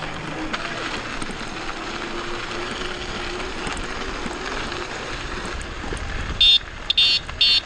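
Steady riding noise from a group of electric bikes rolling along a trail, with a faint motor whine. About six and a half seconds in, several short, loud electronic beeps sound in quick succession.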